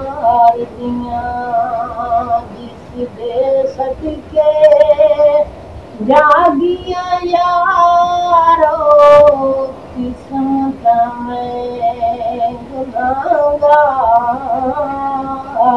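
A man singing a naat unaccompanied in a high voice, holding long wavering notes in phrases broken by short pauses.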